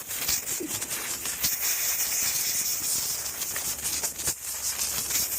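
Compressed-air blow gun hissing as air is blasted through a Dyson stick vacuum part, an uneven, flickering rush as the nozzle is worked along it. Little dust comes out: the part is nearly clean.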